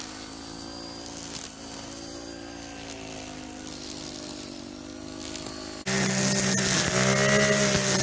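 Black Max 30cc four-stroke string trimmer engine running, its pitch slowly wavering up and down. About six seconds in it turns abruptly louder and deeper.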